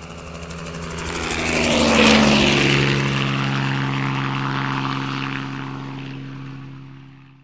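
A propeller aircraft flying past: its engine drone swells to loudest about two seconds in, drops in pitch as it passes, then fades away.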